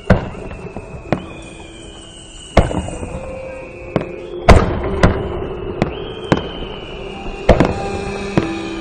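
Aerial fireworks bursting: a string of sharp bangs, about nine in all, the loudest about halfway through, with long whistling tones sliding slowly down in pitch between the bangs.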